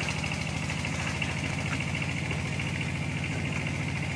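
An engine idling steadily with a fine even pulse, alongside a steady high-pitched buzz.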